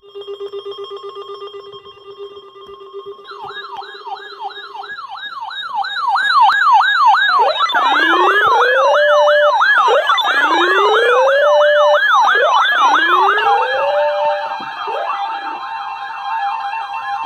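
Layered electronic sirens. A steady tone sounds for the first few seconds. Then a fast yelp sweeps rapidly up and down and grows louder, and slower rising wails join it about halfway through. Steady tones hold under the yelp near the end.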